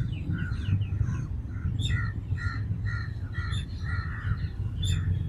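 Birds calling: a run of short, repeated calls, about two a second, with a few higher chirps, over a steady low rumble.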